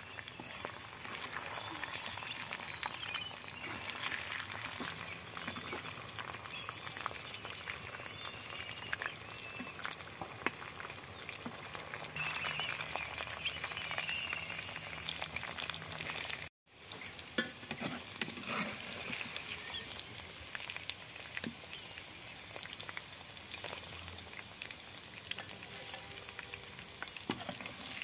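Chicken pieces deep-frying in hot oil in a steel kadai, a steady crackling sizzle, while a metal slotted spoon stirs them and lifts them out. The sound drops out for an instant about halfway.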